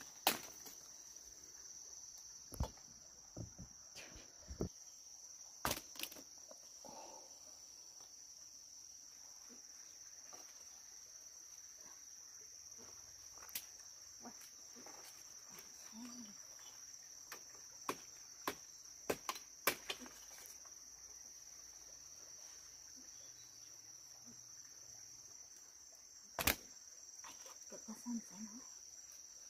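Steady high-pitched insect drone, with scattered sharp clicks and snaps from a knife cutting fruit stems and from branches being handled.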